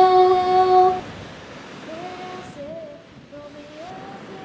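A woman's voice in a pop song holds a long sung note on "go" that ends about a second in, followed by softer, wavering sung or hummed notes over a faint steady hiss.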